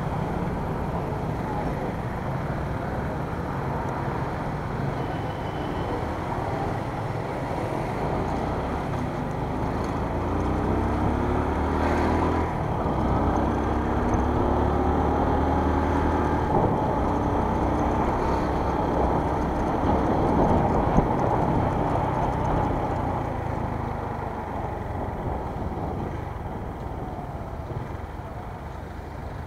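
Motorcycle engine pulling away in traffic and accelerating, its pitch climbing from about eight seconds in with a break near twelve seconds, then running steadily at speed and easing off near the end.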